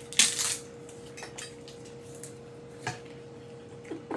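Cutlery and dishes clattering, a spoon against a bowl: one loud clatter about a quarter second in, then a few light clicks, over a faint steady hum.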